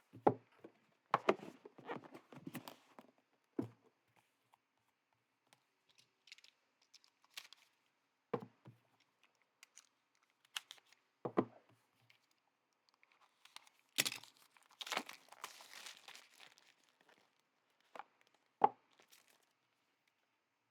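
Packaging of a trading card box being torn and crinkled, with scattered light knocks of cardboard being handled; the longest spell of tearing and rustling comes about two thirds of the way through.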